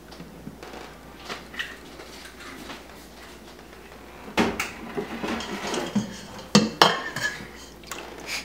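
Kitchenware being handled on a countertop: soft clicks, then a few sharp knocks and clinks about four and a half and six and a half seconds in, as a glass measuring cup and a stainless steel mixing bowl are moved.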